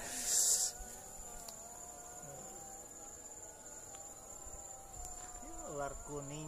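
Insects trilling on one steady high pitch, with a short loud hiss right at the start.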